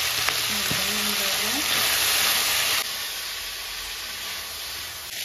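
Onion and capsicum frying in sauce in a hot wok: a steady sizzling hiss that drops to a quieter sizzle a little under three seconds in.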